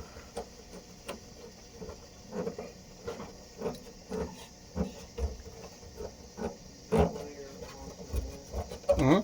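Irregular taps, clicks and small rattles of hand tools and car parts being handled while working under the hood, with louder bumps about seven seconds in and again near the end.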